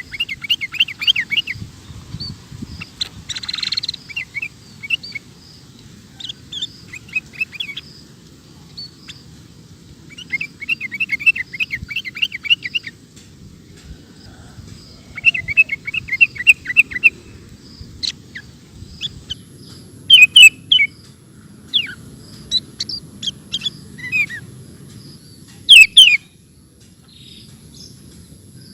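Sooty-headed bulbul (kutilang) singing in rapid runs ('ropel'): quick strings of repeated chirping notes, each run lasting a second or two. In the second half come louder, sharp falling whistled notes.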